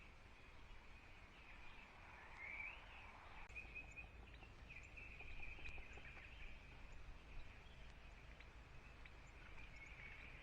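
Faint outdoor ambience: a steady, high-pitched chorus of distant birdsong, with a few soft clicks and a brief soft hiss about two seconds in.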